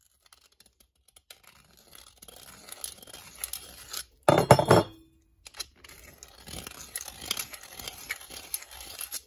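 Hand deburring tool's blade scraping around the inside of a freshly saw-cut steel tube's end, removing the burr from the cut, with small metallic clinks. A louder knock comes about halfway through.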